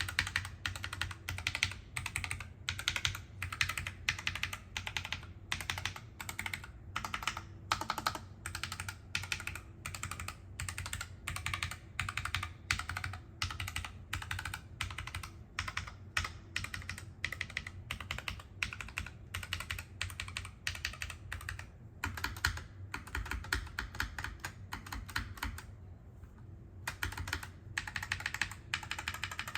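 Typing on a NuPhy Air75 low-profile mechanical keyboard fitted with NuPhy Wisteria tactile switches: a fast, continuous run of key clicks, with a brief pause a little over three-quarters of the way through.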